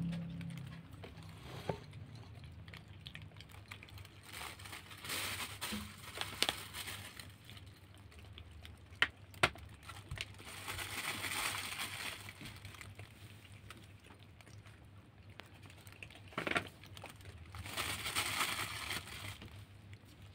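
Kittens eating wet cat food off a plastic food bag: the plastic crinkles in three stretches, with a few sharp clicks in between.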